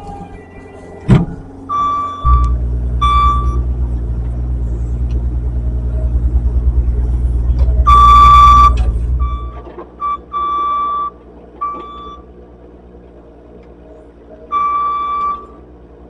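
Skid steer working: its engine runs hard for several seconds and then drops back, while its reversing alarm beeps in uneven bursts. A sharp knock comes about a second in.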